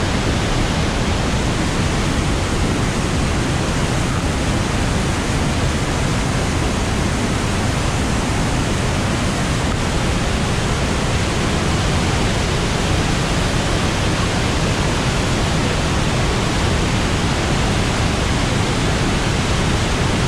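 Steady, loud thundering of the Orange River's floodwater pouring over Augrabies Falls, heard close up from the lookout, with no let-up.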